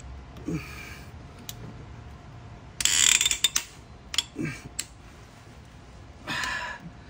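Ratchet wrench clicking in short bursts as the handle is swung back between pulls, turning a cylinder head bolt a further quarter turn during the angle-tightening pass. There are about four bursts, the loudest about three seconds in.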